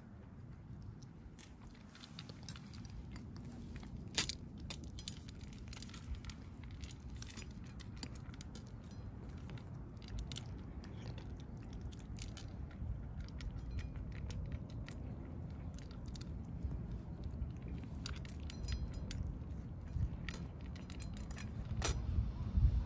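Cats chewing and crunching food: a scatter of small sharp clicks and crunches throughout, over a steady low rumble.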